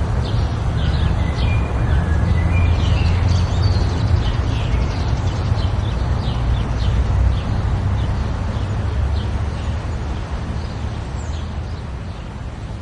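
Outdoor ambience: many small birds chirping over a steady low rumble, the whole fading gradually towards the end.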